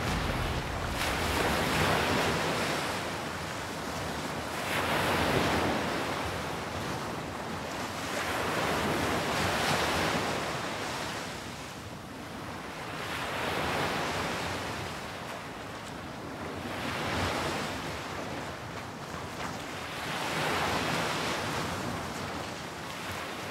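Ocean surf, the waves swelling and falling back about every three to four seconds.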